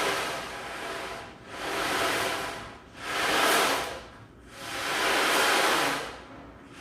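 Ocean drum tilted slowly back and forth, its rolling beads making surf-like washes of hiss that swell and fade about every one and a half to two seconds.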